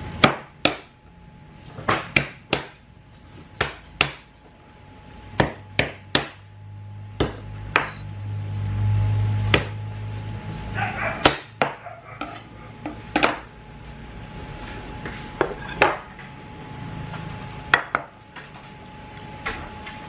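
Cleaver blade smacking garlic cloves on a wooden chopping board to crush them: about twenty sharp knocks at an uneven pace. A low rumble comes in under the knocks for a few seconds partway through.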